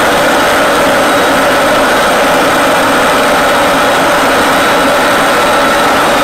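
Steady jet engine and airflow noise inside an F-16 fighter's cockpit in flight: a constant loud rushing hum with faint steady high whines and no change throughout.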